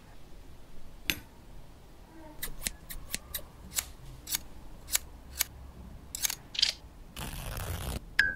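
Scissors snipping paper in an irregular string of short, sharp cuts, then about a second of scratchy rustling.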